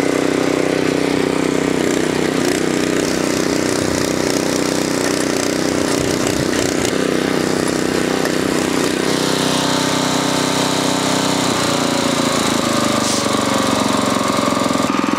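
Earthquake Victory rear-tine tiller's Viper 212cc single-cylinder engine running steadily as the tiller works the garden soil, its note shifting a little past the middle.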